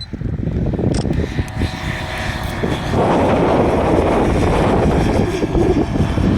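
Light single-engine propeller aircraft running, its engine and propeller noise growing louder about three seconds in and then holding steady.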